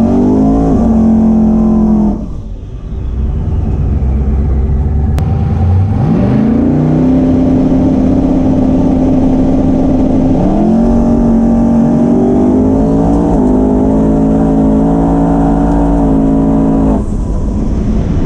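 Twin-turbo Camaro drag car engine heard from inside the cabin. The engine revs and drops back, then is brought up and held at a steady pitch on the line for a few seconds. It then launches with the pitch climbing, steps up once about three seconds later like a gear change, and the driver lifts off near the end.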